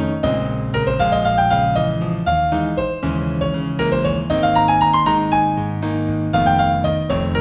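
Piano playing an instrumental piece in A minor at a tempo of about 118: a stepping melody of single notes over held low chords.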